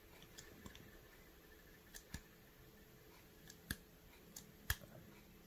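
Near silence broken by a few short, sharp clicks from about two seconds in, the loudest near the end: hands gripping and pressing on a capped plastic syringe full of water.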